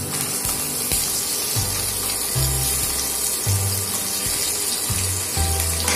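Hot oil sizzling steadily in a wok as boiled potatoes are dropped in. Background music runs underneath, with a bass note about once a second.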